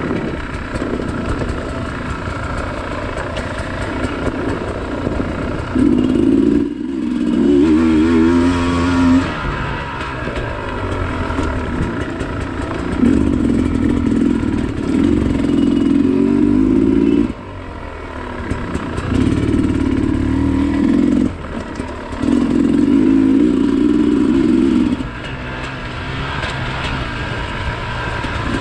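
Dirt bike engine on a trail ride, the throttle opened in repeated bursts of one to four seconds, dropping back between them to a lower engine drone with rolling noise.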